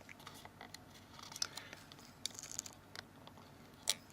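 Small parts being handled during phone reassembly: faint scattered clicks and scrapes of a small plastic and flex-cable part being fitted onto the phone case, with a brief crinkly rustle about halfway through and one sharper click near the end.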